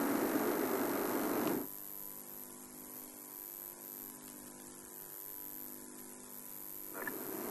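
Game-drive vehicle's engine idling, a steady noisy rumble that cuts off suddenly about a second and a half in, leaving only a faint electrical hum until the noise returns near the end.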